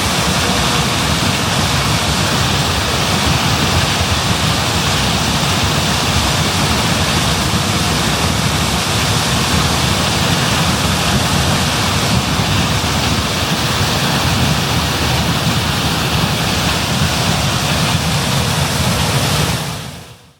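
John Deere S660 combine running steadily in the field, a loud, even machine noise that fades out near the end.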